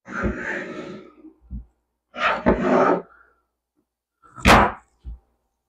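Plastic artificial floral stems rustling as they are handled and picked up from the table, in three short bursts, with a couple of low knocks on the tabletop.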